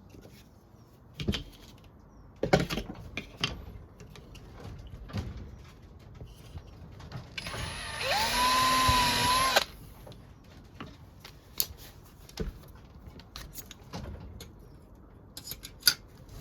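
Power drill running briefly about eight seconds in, its whine rising as it spins up and then holding for about a second and a half, while drilling a bolt hole in a squeeze clamp. Around it are scattered sharp knocks and clicks.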